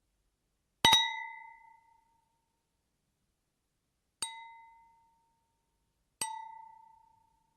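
Glasses clinked together in a toast, three separate clinks, each leaving a short ringing tone that dies away; the first clink is the loudest.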